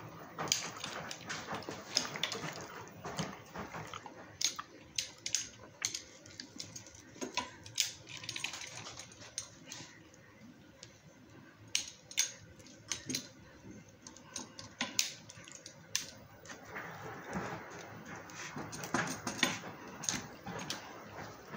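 Wheel pizza cutter slicing through a baked pizza in a metal pizza pan: irregular clicks, knocks and scrapes of the blade and pan.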